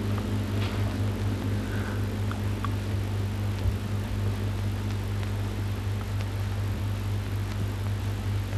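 Steady low electrical hum over even hiss, with a few faint clicks: the background noise of an old film soundtrack with no dialogue.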